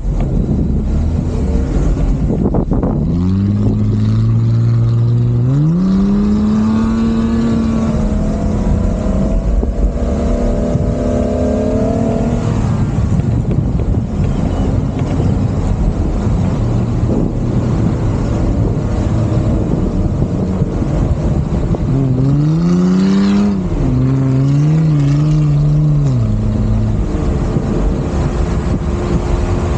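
A 4x4's engine working hard while driving over sand dunes. Its note climbs sharply about three seconds in and holds high for several seconds, then rises and dips again about two-thirds of the way through, over a steady rush of wind noise.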